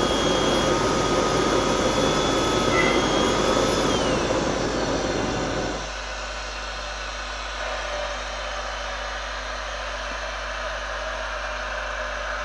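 Homemade tin-can jet engine running with a steady combustion rush and a high turbine whine. About four seconds in, the whine glides down as the turbine spools down, and about two seconds later the low rush cuts off as the flame goes out, leaving a quieter hiss.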